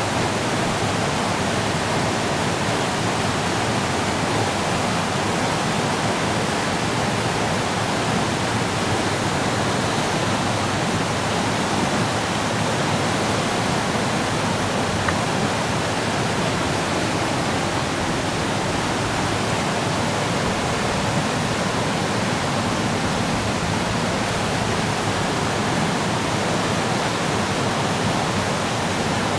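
Swollen river in flood after a typhoon's heavy rain, its fast water rushing in a steady, loud roar.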